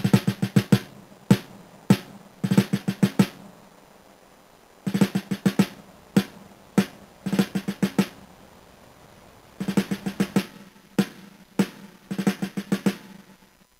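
Music played back as an 8-bit, 8 kHz wav through the ESP32's built-in DAC on the GPIO25 pin, recorded straight from the pin with no output filter. Here it is mostly drums: short clusters of fast hits with quieter gaps between them, then it stops.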